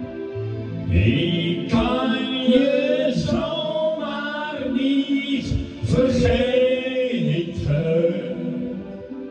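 Male voice singing into a handheld microphone over a recorded backing track, the voice coming in about a second in and holding long, wavering notes until near the end.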